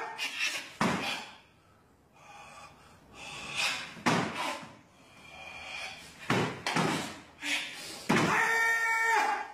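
A barefoot karateka performing the Naihanchi kata: sharp stamps of bare feet on a wooden floor and snaps of the cotton uniform with each strike, spaced unevenly, then a loud shout held for about a second near the end.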